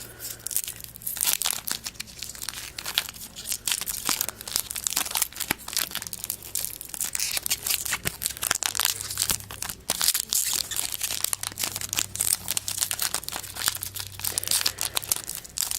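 Foil wrapper of a Topps Chrome baseball card pack crinkling and tearing as it is worked open by hand. The wrapper is stubborn and pretty hard to open, so the crackling goes on in uneven spurts.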